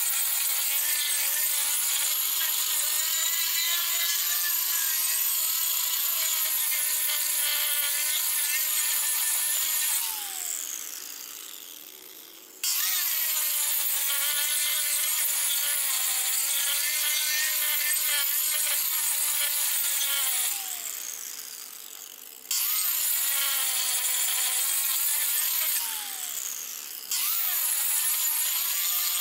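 Angle grinder grinding into the wood of a chopping block, running steadily under load. Three times its whine falls away as the disc slows down, then it is back at full speed.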